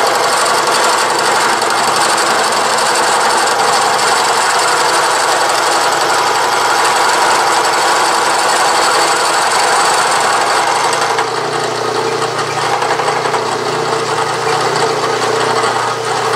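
Milling machine running a gear cutter through a metal gear blank, a loud steady chattering cut. About eleven seconds in the cutting noise drops away, leaving the mill running with a lighter sound.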